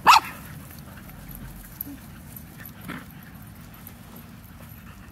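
A puppy gives one sharp, high-pitched yelp at the very start, the kind of cry a pup makes when nipped during rough play. A much fainter short yip follows about three seconds in.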